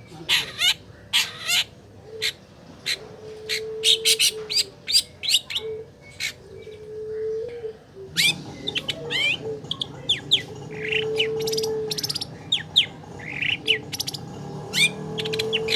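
Long-tailed shrike (cendet) singing a rapid, varied string of sharp chirps, harsh squawks and quick sweeping notes. A low, steady tone comes and goes underneath, and the background grows noisier about eight seconds in.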